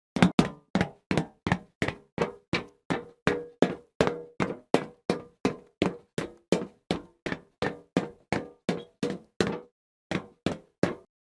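Fast, evenly spaced footsteps, about three a second, each a sharp knock on a hard surface, with a short break near the end before a few more steps.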